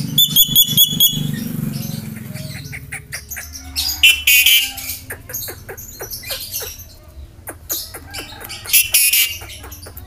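Javan myna calling: a quick run of about five clear whistled notes in the first second, then scattered clicks and a few harsh squawks, the loudest about four seconds in and near the end.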